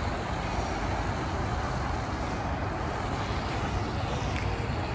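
Steady outdoor background noise: an even hiss over a heavy low rumble.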